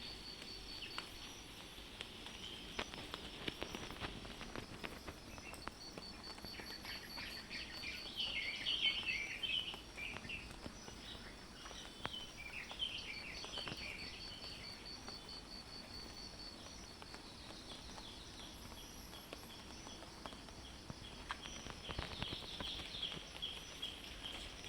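Outdoor ambience of birds chirping in short bursts, over a high, evenly pulsed insect trill that comes and goes, with scattered light patter of drops.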